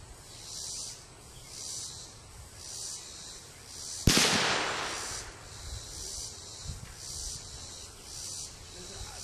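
A single .17 HMR rifle shot cracks about four seconds in, trailing off in an echo for about a second. Insects keep up a high-pitched pulsing about once a second throughout.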